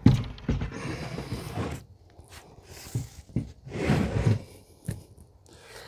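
A heavy plywood sheet being set down and shifted on a workbench: a sharp knock at the start, then scattered knocks and rubbing as the board is handled.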